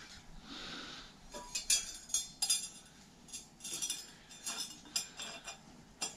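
Irregular light metallic clicks and clinks as a metal bicycle chainring, torn off its crank, is turned over and handled in the hands.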